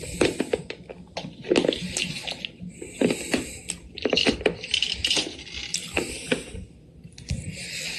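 Close-up wet mouth sounds: short smacks and clicks at irregular intervals, about one every second.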